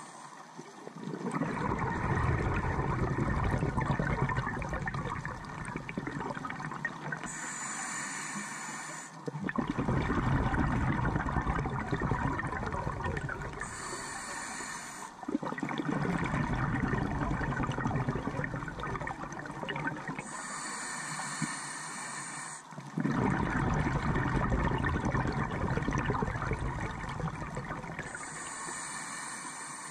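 Scuba diver breathing through a regulator, heard underwater through the GoPro's housing: a short hiss from the demand valve on each inhale, then a longer, louder bubbling rumble as the exhaled air bubbles out. About four slow, even breaths.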